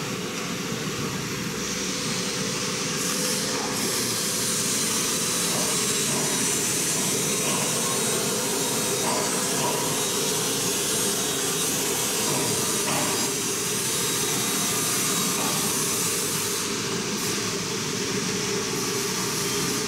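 CNC router machinery running steadily: an even hiss with a constant mid-pitched hum.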